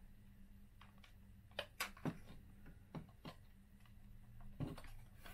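Faint, scattered clicks and light knocks as the plastic housing and circuit board of a car instrument cluster are handled on the bench, over a low steady hum. The clicks come in a short cluster in the middle, with one more near the end.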